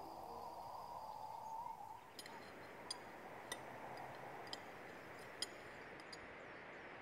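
Faint steady hiss of background ambience, with a few faint scattered ticks.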